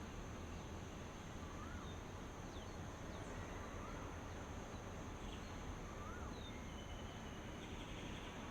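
Outdoor dawn ambience: a steady high-pitched insect drone, with a bird repeating a short up-and-down note about every two seconds and a few faint higher chirps, over a low rumbling hiss.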